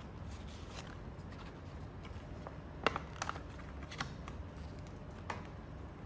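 Paper being folded and creased by hand, rustling quietly with a few sharp crisp clicks, the loudest about three seconds in.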